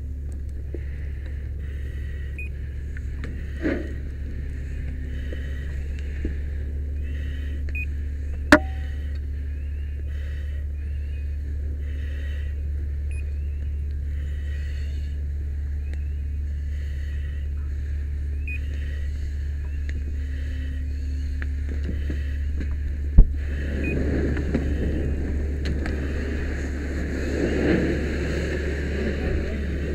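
Steady low drone of a fire engine's pump running, with a hose stream spraying water onto a burning structure, hissing louder over the last several seconds. Two sharp knocks, about eight seconds in and about twenty-three seconds in.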